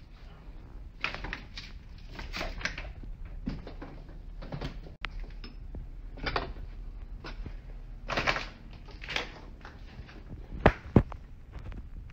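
Footsteps and handling noise from a handheld camera: irregular scuffs and rustles, then two sharp knocks about a third of a second apart near the end.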